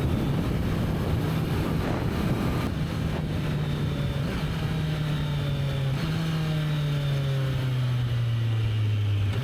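Kawasaki Z900's inline-four engine with its stock exhaust, its pitch falling steadily as the bike slows, stepping up once about six seconds in and then falling again. Wind noise on the microphone in the first few seconds.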